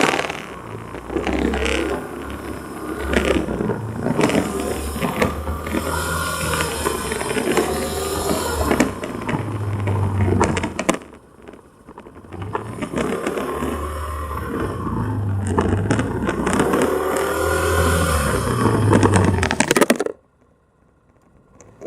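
A vehicle making an abnormal noise: a low engine drone with scraping and clicking over it. It drops away briefly about eleven seconds in and cuts off suddenly about twenty seconds in.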